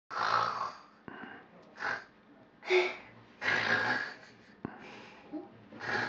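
Snoring from a plush toy bear: a string of about five snores, two long ones at the start and in the middle, with shorter ones between.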